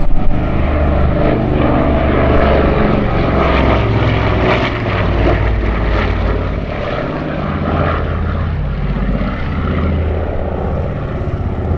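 Avro Anson 19's twin Armstrong Siddeley Cheetah seven-cylinder radial engines and propellers running steadily.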